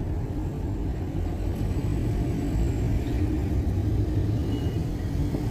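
Steady low rumble of a vehicle on the move, with road noise and no distinct events.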